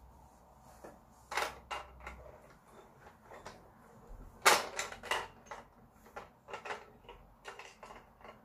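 Plastic toy aeroplane being handled: an irregular series of sharp clicks and knocks, the loudest about four and a half seconds in.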